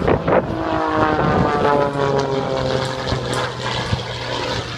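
Aerobatic display plane's propeller engine running overhead, its pitch falling steadily as it sweeps past. Wind buffets the microphone at the start.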